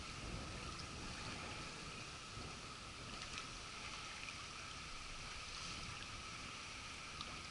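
Faint, steady wash of small river waves lapping on a gravel shore, with a little wind on the microphone.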